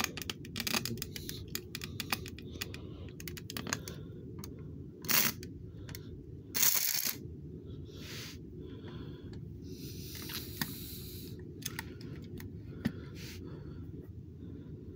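Scattered light clicks, taps and short rustles of small objects being handled, the loudest a brief rustle about seven seconds in, over a steady low hum.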